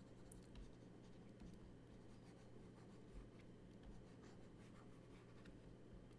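Faint scratching of a stylus on a drawing tablet as sketch strokes are drawn, over a low steady hum.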